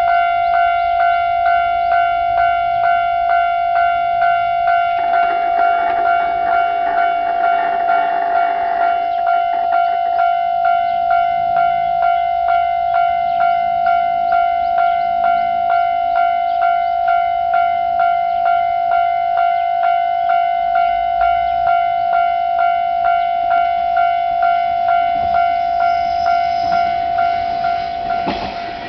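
Japanese level-crossing alarm ringing its repeated electronic 'kan-kan' strokes, about one and a half a second. A second, lower tone joins for a few seconds about five seconds in. Near the end the noise of an approaching train rises under it.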